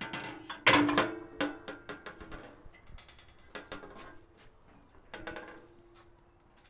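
Steel parts of a Pit Barrel Cooker clanking and ringing as wings are taken off the grate with metal tongs: one loud ringing clang just under a second in, then several lighter clinks.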